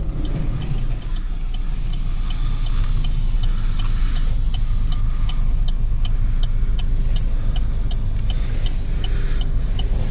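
A large machine engine running steadily under a low rumble, with a rapid regular ticking of about three ticks a second; a faint steady hum comes in about halfway.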